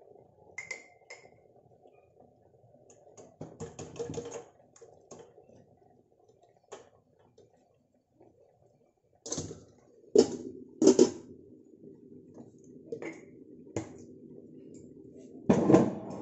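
Kitchen handling sounds: a spoon clinking against a glass jar and a stainless steel pan, with a few light clicks early and sharper knocks later. Near the end comes a loud cluster of metal knocks as the stainless steel domed lid is set on the pan.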